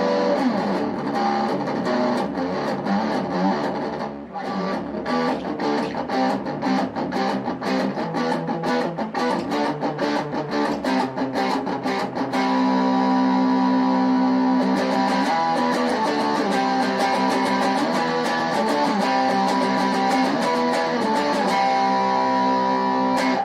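Distorted electric guitar through a custom Fender practice amp with its distortion switched on, playing rhythm. It goes from fast, evenly picked chugs to long ringing chords, then stops abruptly near the end.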